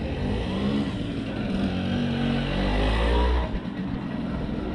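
A vehicle engine accelerating in the street, its pitch rising for a couple of seconds, then cutting off suddenly about three and a half seconds in.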